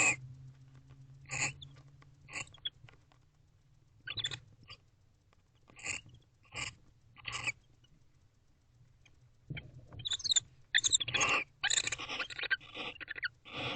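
Pair of barn owls twittering: short, raspy calls spaced about a second apart, then a quicker, louder run of them over the last few seconds. This is the affectionate twittering of a bonded, courting pair.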